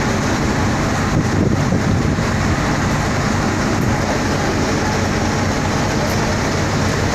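A boat's engine running steadily under way, a constant low hum under a loud, even rushing noise.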